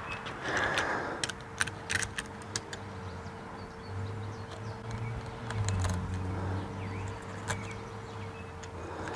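Scattered sharp clicks and light knocks of hand work on a door screen and its frame, thickest in the first three seconds, over a faint steady hum.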